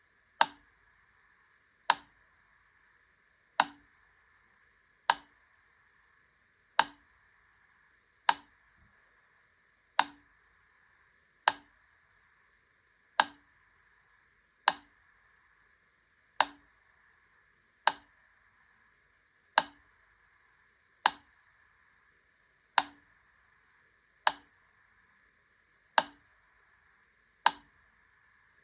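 Wittner Taktell Piccolo mechanical metronome ticking at a slow tempo, one sharp tick about every 1.6 seconds (about 18 ticks). The gaps alternate slightly longer and shorter.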